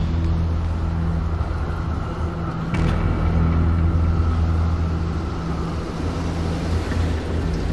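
Low, steady droning note from a dark film score, a deep rumble, with a single sharp hit about three seconds in.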